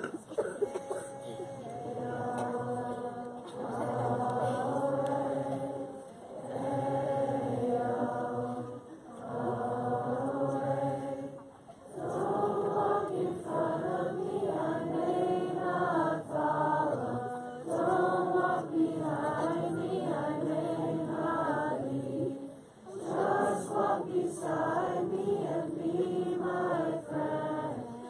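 A large group of children and teenagers singing a Havdalah melody together, phrase by phrase with short breaks for breath between phrases.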